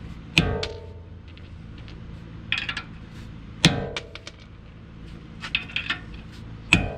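A rubber hammer driving a half-inch metal tool against a wheel spacer that is rusted onto a BMW F10 M5's wheel hub: three hard metallic blows about three seconds apart, each ringing briefly, with lighter clinks in between.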